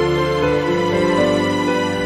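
Background music with long held notes that change every second or so.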